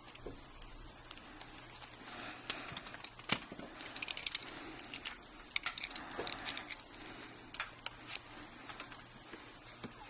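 Small clicks, ticks and light scraping from a screwdriver working the metal holding pins and bracket on a laptop hard drive, with rustling of hands, and one sharper click a little past the middle.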